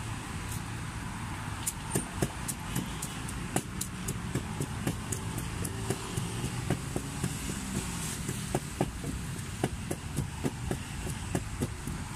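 Wooden pestle pounding in a mortar for papaya salad: sharp, rhythmic knocks, about three a second, over a steady rumble of road traffic.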